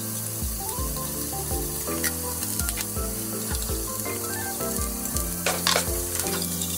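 Ground meat sizzling as it is stir-fried with chopsticks in a rectangular tamagoyaki pan, with a few sharp clicks of the chopsticks against the pan, the loudest near the end. Soft background music plays over it.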